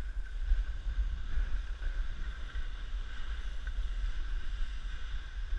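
Wind buffeting the microphone of a skier's camera as he glides down a snow slope, a steady low rumble over an even hiss.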